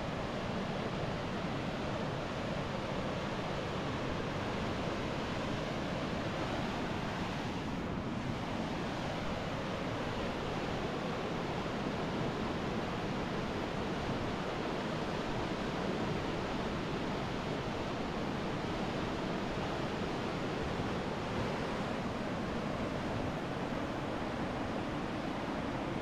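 Barnafoss waterfall's torrent, the Hvítá river gushing through the lava, a steady rush of white water.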